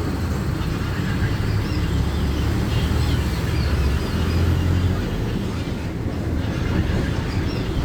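Interior of a city bus on the move: a steady low engine and road rumble.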